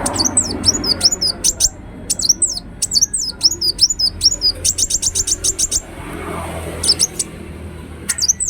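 Ruby-cheeked sunbird calling: groups of high, sharp, sweeping chirps, with a quick run of about ten even notes around the middle and a few more chirps near the end. A faint low hum runs underneath.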